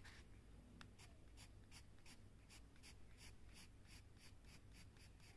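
Pencil scratching on paper in short, quick shading strokes, about three a second, faint.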